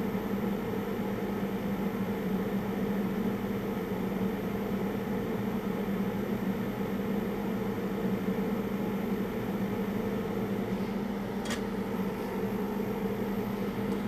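Steady hum of a bench fume-extractor fan, with one faint click about eleven and a half seconds in.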